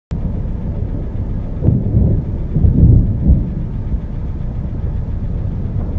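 Deep, uneven rumble of a thunderstorm, swelling several times between about two and three and a half seconds in.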